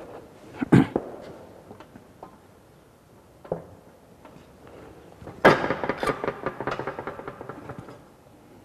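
Metal knocks and clanks from handling sheet metal at a manual sheet-metal bending machine. There is a sharp knock just under a second in and a smaller one past the middle, then a loud clang followed by about two seconds of rapid rattling that dies away.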